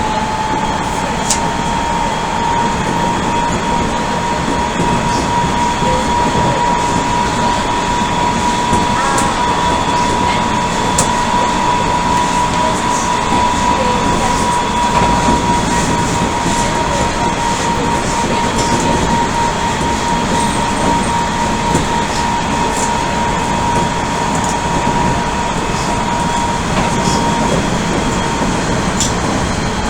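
Odakyu 1000 series electric train with Mitsubishi GTO inverter running at speed, heard inside the car: steady rumble of wheels and track with a high whine held at one pitch, and a few sharp clicks from the rails.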